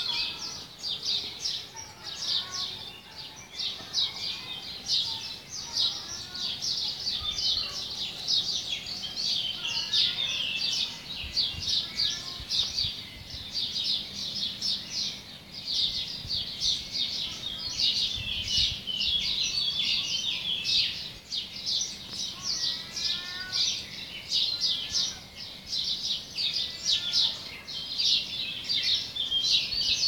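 Morning chorus of many small birds: dense, continuous high chirping and twittering, with a few lower sliding whistled notes now and then.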